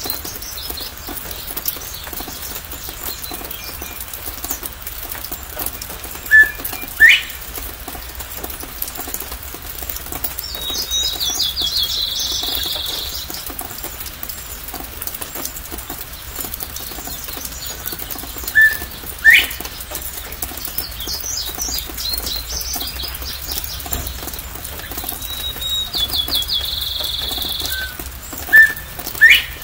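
Northern bobwhite calling "bob-white" three times, about eleven seconds apart: a short low note, then a loud whistle that sweeps sharply upward. Steady rain patter throughout.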